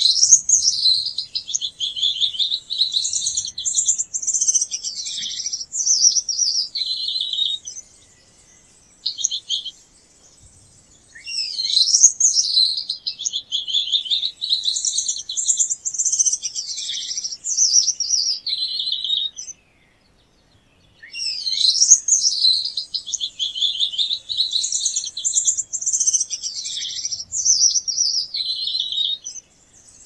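Gouldian finch singing: three song phrases of about eight seconds each, separated by short pauses. Each opens with a quick up-and-down sweep and goes on as a run of high, buzzy notes.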